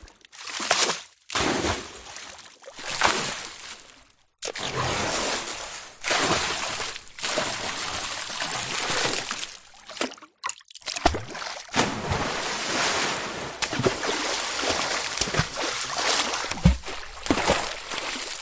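Water splashing: several short separate splashes in the first four seconds, then longer stretches of continuous splashing, with a few sharper splashes near the end.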